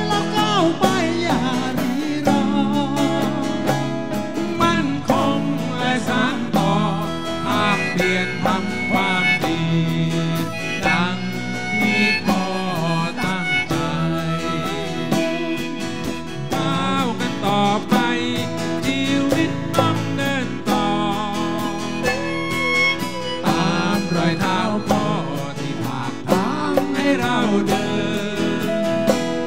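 Live band music: electric band with guitar lines over bass and drums, with hand percussion played on congas and bongos.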